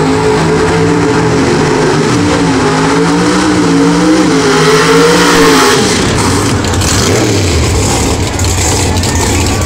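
Drag racing cars' engines revving hard during burnouts, their note wavering up and down. A little under six seconds in the revving drops off and a lower, steadier engine rumble takes over.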